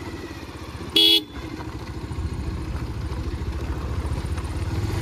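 Motorcycle engine running with a low, even pulse, growing louder over the last few seconds as the bike gets going. A single short horn honk sounds about a second in.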